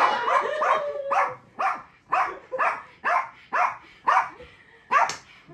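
A dog barking repeatedly at an even pace, about two barks a second, with voices shouting during the first second.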